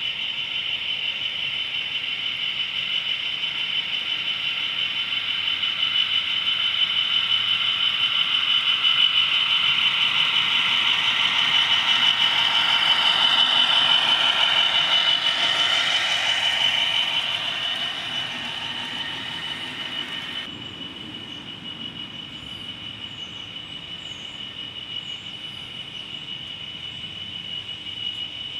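OO gauge model diesel locomotive's motor and gears whining at a steady high pitch, with the wagons' wheels rolling on the rails. It grows louder as the train runs close by, then suddenly drops quieter about two-thirds of the way through.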